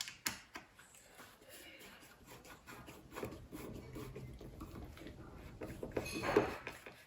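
A wood screw being driven into a door jamb whose hole is packed with glued toothpicks: scattered clicks, then a stretch of rubbing and grinding that is loudest about six seconds in.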